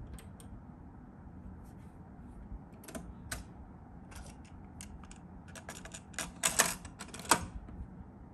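Switches and cassette mechanism of a TEAC A-630 stereo cassette deck being worked by hand: a click as the power switch goes on, a couple of clicks as the cassette door opens, then a rapid run of plastic and metal clicks and snaps as a cassette is loaded and the door pushed shut, the loudest snaps near the end.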